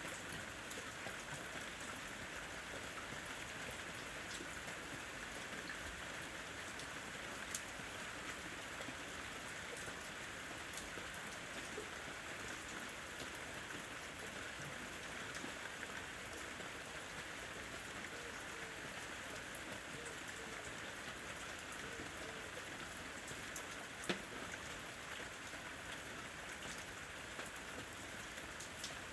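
Steady rain falling, with individual drops ticking on a hard surface and a couple of sharper drips standing out.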